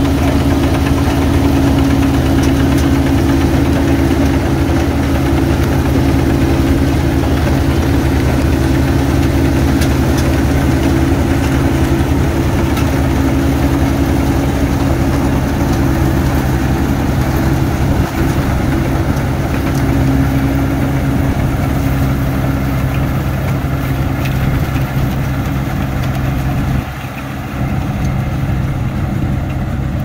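Kubota DC-35 combine harvester's diesel engine running steadily at full speed while harvesting rice, briefly dropping in level near the end.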